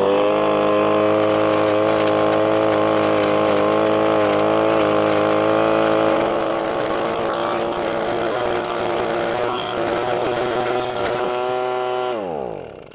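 Echo ES-250 Shred 'N Vac's small two-stroke engine revving up to full throttle in vacuum mode, sucking leaves up through the hose. It runs steady at first and turns rougher and less even from about six seconds in. Near the end the revs fall away.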